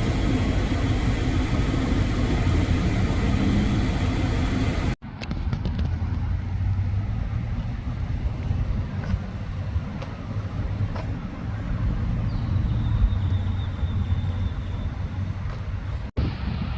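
Steady low rumble of a car engine and road noise while driving, broken off abruptly twice, about five seconds in and near the end.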